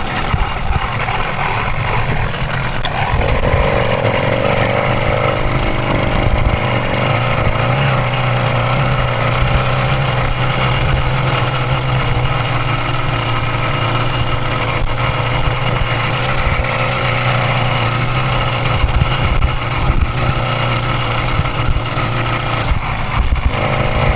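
66cc two-stroke motorized-bicycle engine running steadily at a low, even speed, its pitch holding nearly constant.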